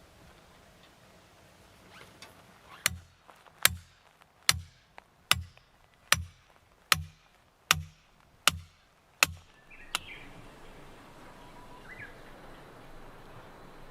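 A series of nine sharp strikes, evenly spaced a little under a second apart, each a crack with a dull thud behind it, followed by one fainter knock about a second later.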